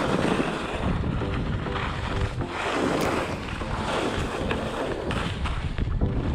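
Wind rushing over the camera microphone while skiing downhill, with skis scraping across the snow, the noise swelling and easing with each turn.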